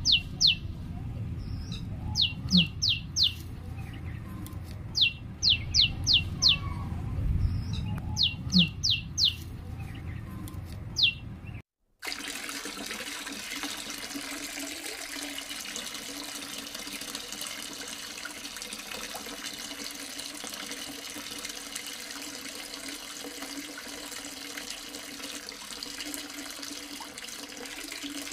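Birds chirping in quick runs of three to five short falling notes over a low rumble. After a short break, water pours steadily from the outlet pipe of a small DIY water pump into soil, with a steady low hum underneath.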